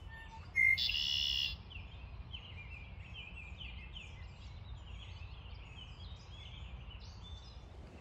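Male red-winged blackbird singing: a short note, then a loud buzzy trill lasting under a second, followed by a run of short, sharp, downsweeping chip calls.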